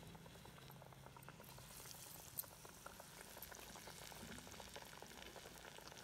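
Masala vadas (chana dal fritters) deep-frying in hot oil: faint, steady sizzling and fine crackling of the bubbling oil, with one louder click about two and a half seconds in.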